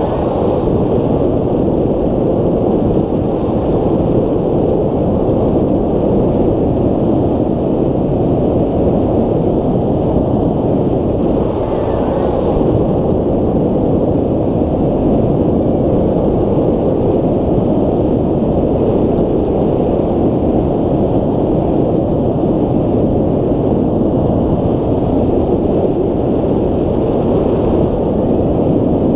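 Airflow buffeting the microphone of a wing-mounted camera on a hang glider in flight: a loud, steady, low rumble of wind noise.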